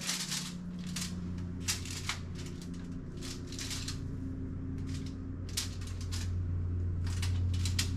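Lawn mower engine running steadily in the background, its hum growing slightly louder toward the end. Over it come scattered short crackles and clicks, about a dozen, from bacon being laid out on a foil-lined cookie sheet.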